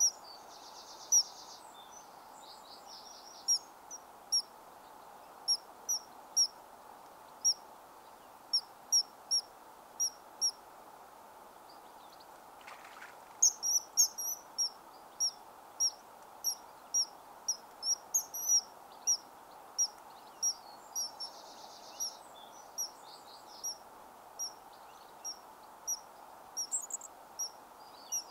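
Common kingfishers giving short, shrill, high-pitched calls, one every second or so and more thickly about halfway through, with a few brief buzzy trills, over steady low background noise.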